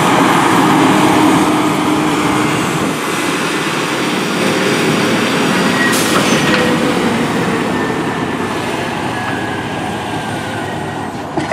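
Scania truck's diesel engine running under full load as the truck drags a weighted pulling sled, a steady loud drone that fades slowly toward the end. A single sharp click about six seconds in.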